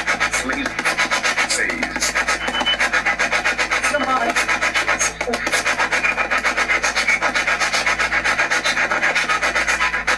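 Spirit box sweeping through radio stations: rapid choppy bursts of static and clipped radio fragments, about eight a second. It cuts off abruptly just after the end.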